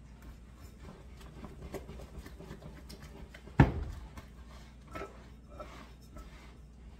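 Wooden spoon beating a thick flour batter in a ceramic mixing bowl: soft, irregular scraping and knocking of the spoon against the bowl, with one sharp, loud knock about three and a half seconds in.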